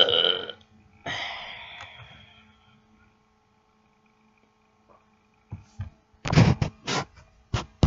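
A person burping twice: a short burp, then a longer one that fades away over about a second and a half. A few seconds later comes a quick run of short, loud, noisy bursts.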